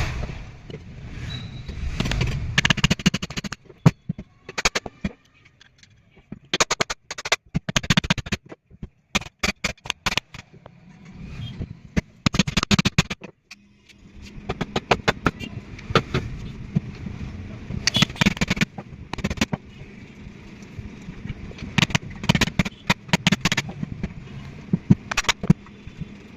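Tools tapping, knocking and clicking against the metal parts of a ceiling fan during a bearing change, in irregular bursts of quick sharp strikes over a low steady hum.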